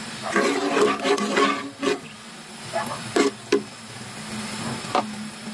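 Pot of vegetables in coconut milk heating on a stove burner, with a low steady hum and a faint hiss under it. A brief pitched, voice-like sound fills the first two seconds, and a few sharp knocks come about three and five seconds in.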